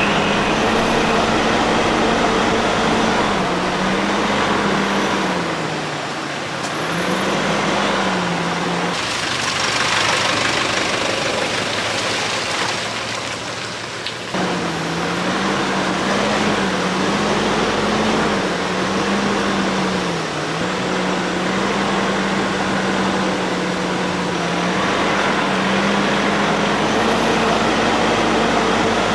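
A Nissan 4x4's engine running as it is driven slowly off-road, its note rising and falling with the throttle over a rush of road and tyre noise. For about five seconds in the middle only the rushing noise is heard, then the engine note returns abruptly.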